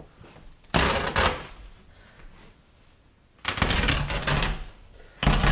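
Carpet being torn up from the floor by hand in three rough pulls, a ripping rasp each time.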